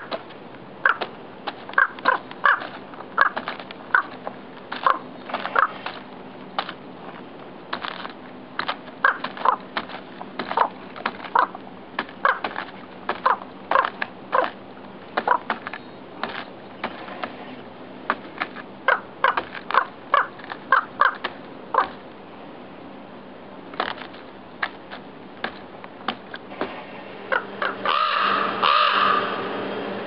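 Raven giving a long run of short, sharp knocks, sometimes several in quick succession, then one longer drawn-out call near the end, from a raven agitated by a person near its nest.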